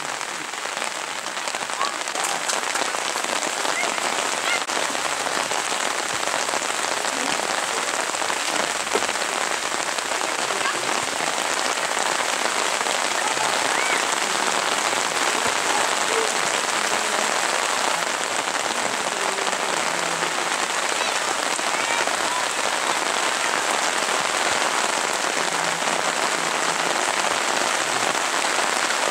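Steady rain falling as an even hiss, getting slightly louder over the first couple of seconds.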